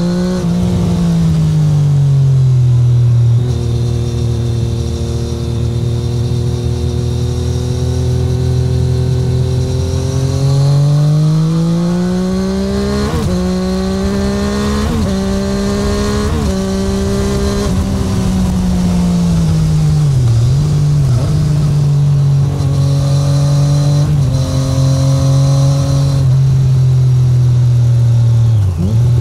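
Triumph Street Triple 765R's inline three-cylinder engine through an SC Project SC1-R titanium exhaust, heard onboard with no wind noise. The note eases down, holds steady, then climbs with three quick sharp dips about halfway through before falling back to a steady cruise.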